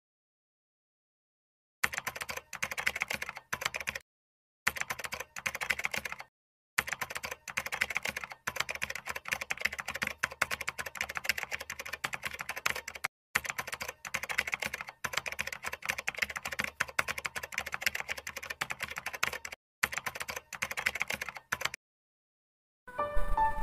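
Typing sound effect: rapid key clicks in runs with short pauses. It starts about two seconds in and stops about a second before the end.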